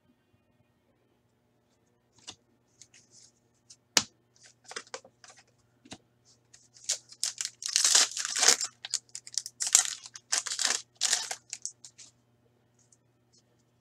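Hockey trading cards being handled and a card pack being torn open: papery tearing and crinkling with one sharp click about four seconds in, densest and loudest from about seven to eleven seconds.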